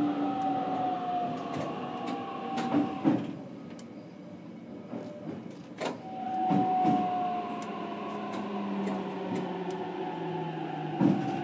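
Running sound heard aboard the motor car of a JR Kyushu BEC819 series "DENCHA" battery train: the Hitachi IGBT inverter and traction motors whine in slowly sliding tones over the steady rumble of wheels on rail, with a few sharp clicks. The whine fades for a couple of seconds near the middle and comes back about six seconds in.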